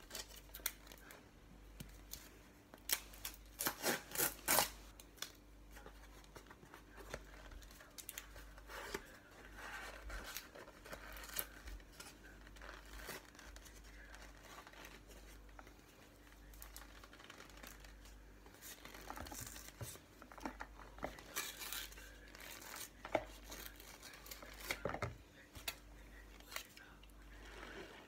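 Cardboard box of cornflour being torn open by hand: tearing and crinkling of card and paper in several bursts, the loudest a few seconds in.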